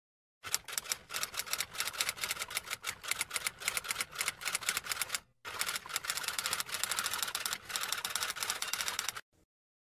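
Rapid typewriter-style typing clicks in two runs, with a short break about halfway, cutting off suddenly near the end.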